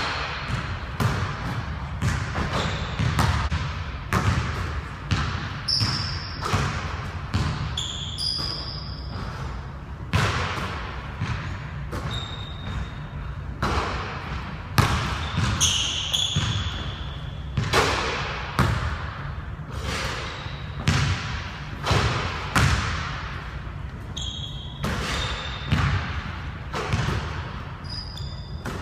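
A basketball thudding again and again on a hardwood gym floor, with short high sneaker squeaks, all echoing in a large gym.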